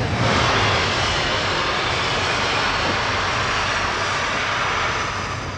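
Steam locomotive LNER A3 Pacific 4472 Flying Scotsman starting away with its train, giving a loud, steady hiss of escaping steam over a low hum. The sound eases a little near the end.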